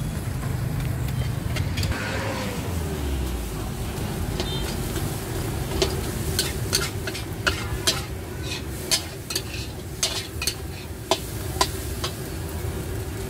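Metal spatula scraping and clanking against a wok while stir-frying, over a steady sizzle. The sharp clanks come thick and fast from about six seconds in; before that a low rumble with a falling tone is heard.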